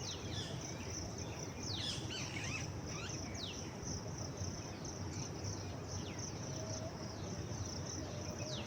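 Outdoor insect chorus holding one steady high-pitched drone, with small birds giving repeated short downward-sweeping chirps over it, on top of a low steady rushing noise.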